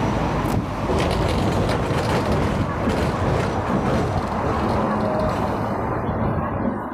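Steady running noise of a Hong Kong tram mixed with street traffic, heard from the tram's upper deck, a low hum under a constant rushing noise. The hissing upper part thins out about six seconds in.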